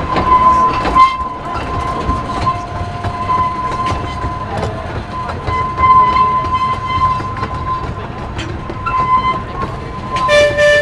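A train running on rails, with track clatter and a steady high-pitched squeal. A short horn toot sounds near the end.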